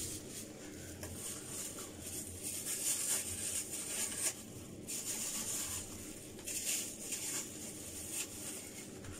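Soft rustling and rubbing of hands working through hair, coming and going several times over a faint low hum.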